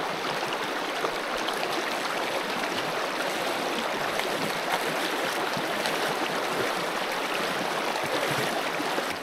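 Shallow river running over rocks and stones, a steady rushing of water heard close up.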